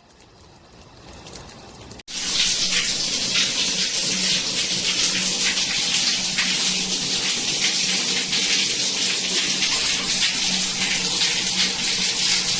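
Water spraying steadily from a shower head, a loud even hiss that starts abruptly about two seconds in.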